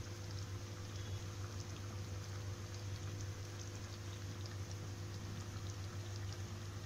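Stingray fish curry simmering gently in the pan: faint bubbling with scattered tiny pops over a steady low hum.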